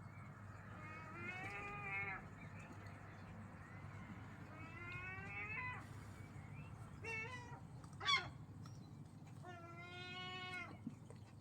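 A series of five drawn-out animal calls, each rising in pitch and then held for up to about a second, with a short, sharper and louder one about eight seconds in.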